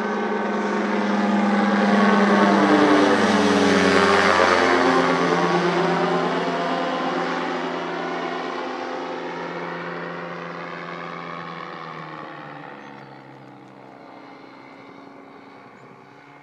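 GyroBee ultralight autogyro flying overhead, its engine and propeller droning. The drone is loudest about three to four seconds in, where its pitch drops as the aircraft passes, then fades steadily as it flies off.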